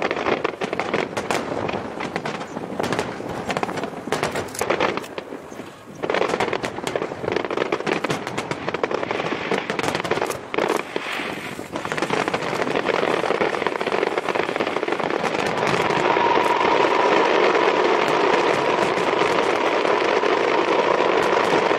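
Aerial firework shells bursting, at first as many separate sharp reports, then from about halfway through as a dense, continuous barrage of crackling bursts that grows louder toward the end.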